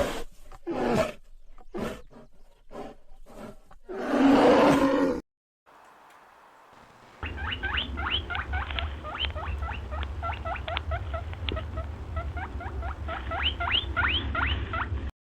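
A large animal, likely a big cat, roaring in a series of rough calls, then after a short pause many short, rising high chirps over a low rumble.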